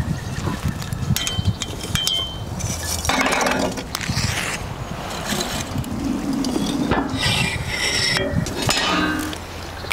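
A series of light metallic clinks and knocks as the fittings of a Big Green Egg ceramic kamado grill are handled. A short rushing scrape comes about three seconds in.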